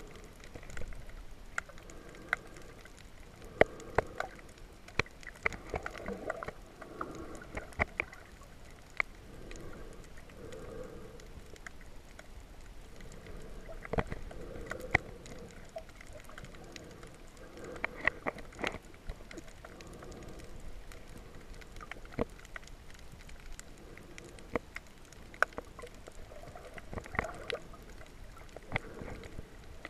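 Muffled underwater sound picked up by a submerged camera while snorkeling: a murky wash of moving water that swells and fades every few seconds, with scattered sharp clicks and pops throughout.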